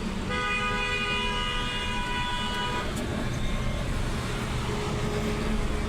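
Maruti Suzuki WagonR K-series engine running rough: a steady low rumble from an engine misfiring badly, with one cylinder not working, as the mechanic judges it. A horn-like tone sounds for about two and a half seconds near the start.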